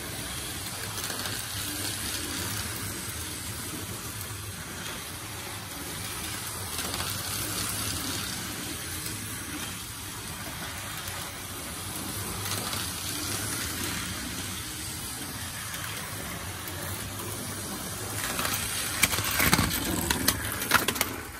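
Tyco slot cars and an HO-scale train running on the track: a steady whir of small electric motors and wheels on the rails. Near the end there is a clattering crash with several sharp knocks as a slot car hits the train at the crossing and knocks freight cars off the track.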